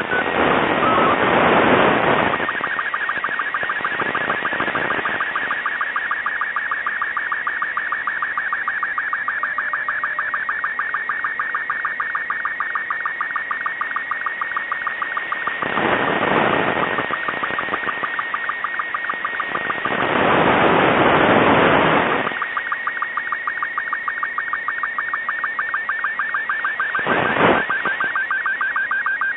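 Slow-scan television (SSTV) picture signal from the CO-66 SEEDS II cubesat, heard through an FM receiver: a warbling tone that jumps rapidly between pitches, with a fast, steady ticking of line-sync pulses. It is broken several times by swells of static, the longest near the start and about two-thirds of the way through.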